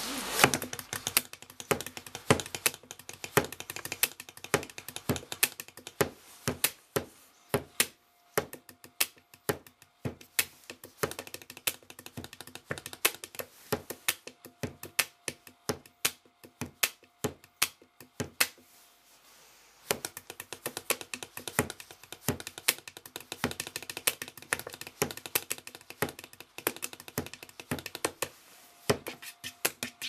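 Ballpoint pens drummed on a wooden tabletop, playing fast, rhythmic pen-tapping beats of sharp clicks and knocks, with a short pause about two-thirds of the way through.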